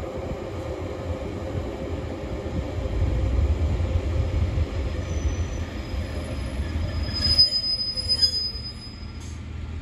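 Two-car Class 142 Pacer diesel railbus running in slowly: a steady low rumble from its underfloor engines and wheels on the track. It grows louder for a few seconds, then fades as a high brake squeal rings out for about a second and a half near the end, as the train comes to a stand.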